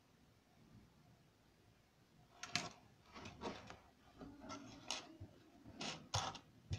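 Small electronic parts, wire and a soldering iron being handled on a wooden tabletop. It is quiet at first, then from about two and a half seconds in comes a string of irregular clicks, taps and short scrapes.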